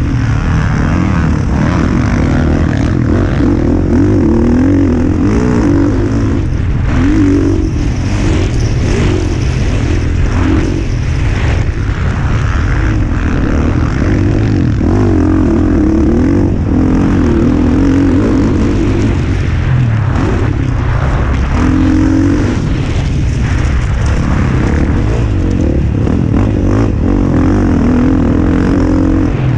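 Motocross bike engine revving up and down again and again as the rider accelerates, shifts and backs off around the track, heard close up from a helmet camera over a steady rushing noise.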